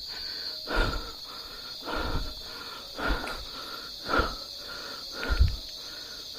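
Footsteps, about one step a second, over a steady, high chorus of crickets and other insects.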